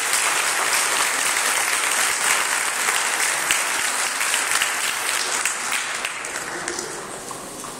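Crowd applauding, a dense clatter of many hands clapping that dies away near the end.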